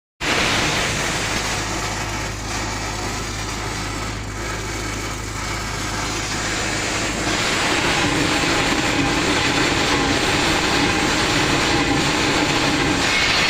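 E6010 stick-welding arc crackling and hissing steadily, over a steady low hum that stops about seven seconds in.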